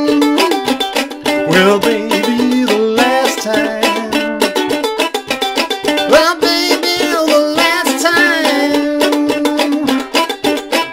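Ukulele played in the clawhammer style: a steady run of quick plucked and brushed notes, with down-strokes and thumb notes keeping an even rhythm.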